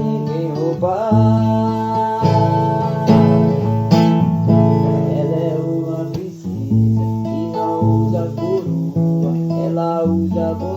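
Acoustic guitar strummed, playing a gentle song with a chord change about every second.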